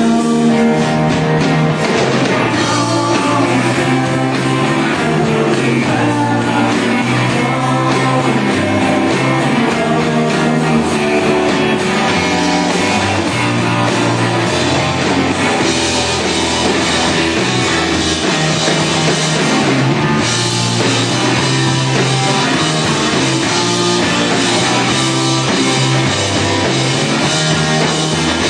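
Rock band playing loud and steady, with a drum kit, guitar and singing.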